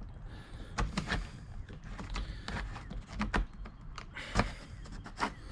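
Plastic clicks and creaks as the mirror assembly of a Porsche 986 Boxster sun visor is pried out of its clips, with the sharpest click about four and a half seconds in.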